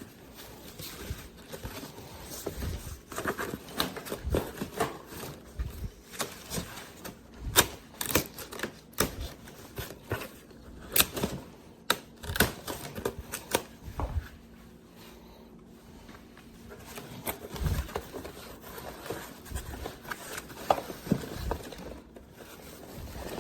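A cardboard shipping box being opened and unpacked by hand: irregular clicks, knocks and rustles of cardboard and packing, with a quieter stretch about two thirds of the way through.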